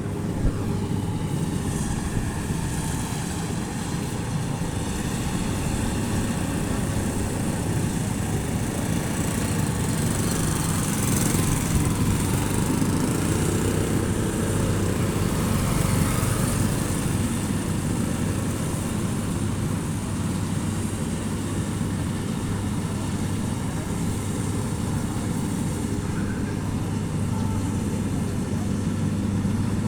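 Rice combine harvester engine running steadily, a constant low drone with mechanical noise over it, swelling slightly in the middle.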